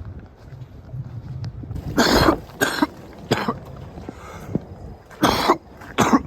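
A man coughing in short, harsh coughs: three close together about two seconds in, then two more near the end.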